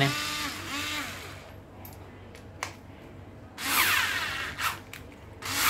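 Bosch IXO 3.6 V cordless screwdriver run in two short bursts, its small motor whining and falling in pitch as it spins down each time, with a few light clicks of handling before.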